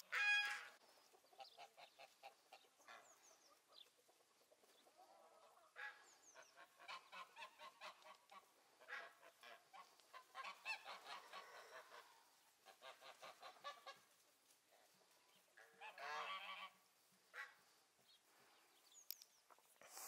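A flock of domestic geese honking and gabbling: one loud honk right at the start, then long runs of quick, softer chattering calls, and another loud honk about sixteen seconds in.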